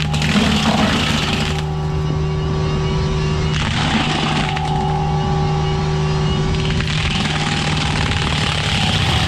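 Kubota U55-4 mini excavator running steadily under load with its forestry mulcher head spinning, the engine hum constant, with stretches of louder rushing noise as the mulcher chews through brush, near the start, about four seconds in and again from about seven seconds.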